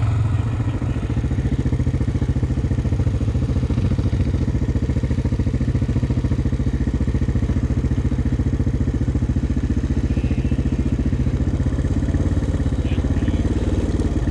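Single-cylinder ATV engine, a Honda 400X quad, running steadily at low speed with an even, fast firing beat.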